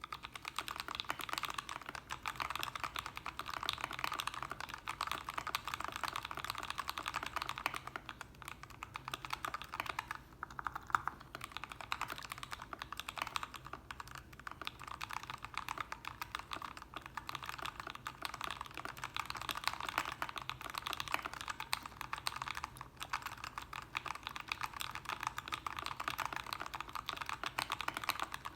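Continuous typing on a Royal Kludge RK61 mechanical keyboard with lubed red linear switches: a dense, steady stream of key presses, broken by a few brief pauses.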